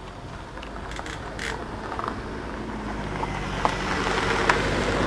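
Rushing air noise building steadily louder, with two sharp clicks near the end.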